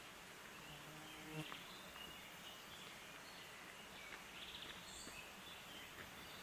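Faint outdoor quiet with an insect buzzing past briefly about a second in, and scattered short high chirps and a few faint ticks.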